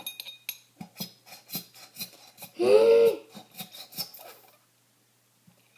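A spoon stirring a thick shampoo and baking soda slime mixture in a cup, scraping and tapping against the sides in quick, irregular strokes. The stirring stops near the end.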